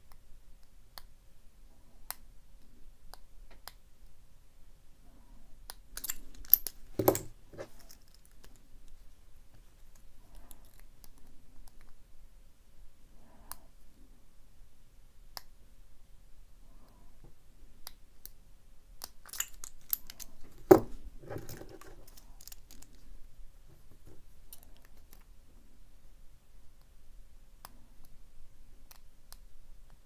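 Lock pick and tension wrench working the standard pin tumblers of a Master Lock No. 3 laminated padlock: scattered faint clicks, with two louder clusters of clicking and clatter, about six to seven seconds in and about twenty to twenty-one seconds in.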